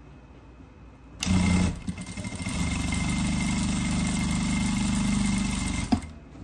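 Jack A4E industrial lockstitch sewing machine starting about a second in with a short burst of quick lock stitches, then running steadily at speed as it sews forward, with a steady high whine, and stopping with a sharp click near the end. It is kind of loud.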